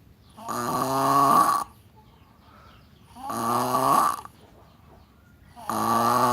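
Deep, bass-heavy snoring: three loud snores, each about a second long and about two and a half seconds apart, with quiet breathing in between.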